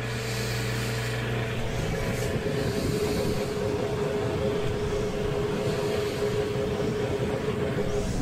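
Vintage Toastmaster 5301-1 electric desk fan running: a steady motor hum over the rush of its blades' air.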